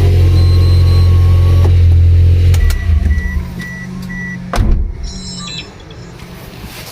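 Car running with a loud, steady low drone that cuts off about two and a half seconds in. Four short electronic beeps follow, then a single sharp knock.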